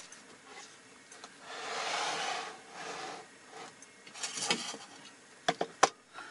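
Tableware handling at a meal: a rustle, then a few sharp clicks of wooden chopsticks against a ceramic rice bowl near the end.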